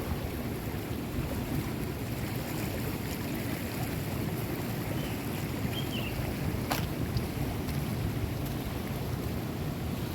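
Steady rush of a waterfall's falling water, with one sharp click about two-thirds of the way through.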